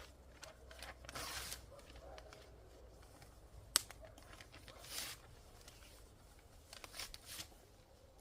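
Scattered rustling and clicking handling noises, with a sharp click a little under four seconds in.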